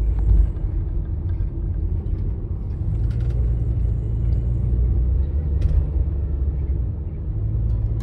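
Steady low rumble of engine and road noise heard inside the cabin of a moving Toyota HiAce camper van.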